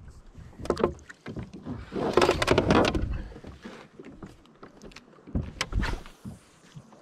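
Handling noises in a fishing kayak: sharp knocks and bumps on the hull and gear. About two seconds in comes a louder rushing scrape lasting around a second.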